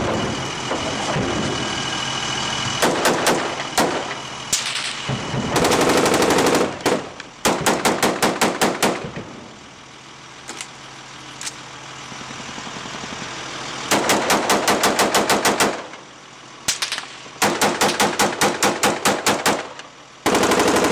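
Automatic gunfire fired close by, in several long rapid bursts separated by pauses of a second to a few seconds, with a lower steady background noise between the bursts.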